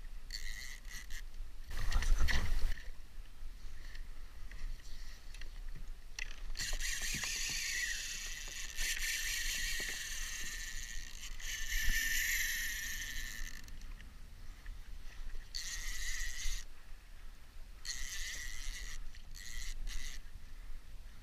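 Fishing reel under load from a hooked halibut, giving a whirring, ratcheting mechanical sound in stop-start bursts, the longest lasting several seconds midway. A brief loud low rumble comes about two seconds in.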